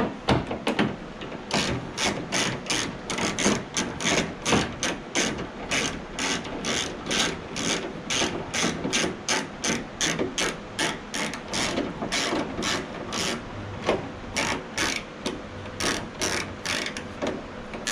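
Hand ratchet wrench clicking as it is swung back and forth to loosen a hidden door-handle bolt inside a car door, a steady run of clicks about two or three a second.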